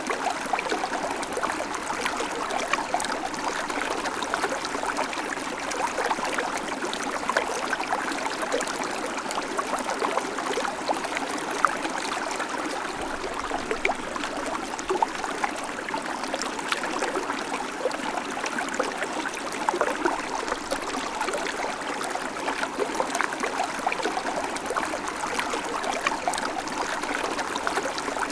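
Babbling creek: shallow water running steadily over stones, with many small splashes and trickles.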